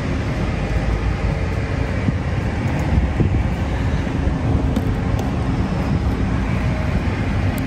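Steady city street noise: a continuous low rumble of road traffic.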